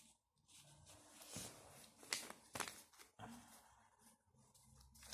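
Faint rustling and a few soft, sharp clicks as a deck of tarot cards is handled and squared in the hands.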